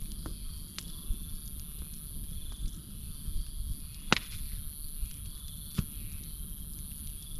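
Wood campfire burning with a low steady rush and a few sharp crackling pops, the loudest about four seconds in. Crickets chirp steadily in the background.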